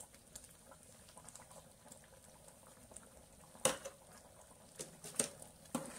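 Thick dal-and-goat-intestine curry simmering gently in a steel pot, with small bubbles popping softly. A few sharper clicks come in the second half.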